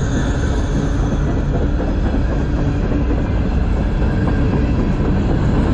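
Covered hopper cars of a passing freight train rolling by close at hand: a steady, loud noise of steel wheels running on the rails.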